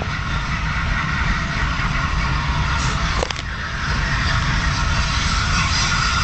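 Peppercorn A1 Pacific steam locomotive 60163 Tornado: a steady hiss of steam over a low rumble, with no beat of exhaust. A sharp click comes about three seconds in.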